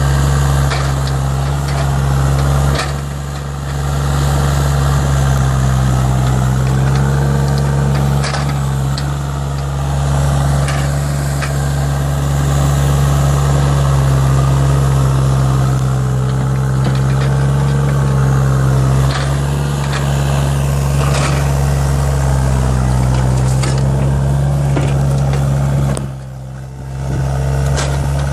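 Hitachi ZX35U mini excavator's diesel engine running steadily, with scattered knocks and clanks. The level dips briefly twice, about three seconds in and near the end.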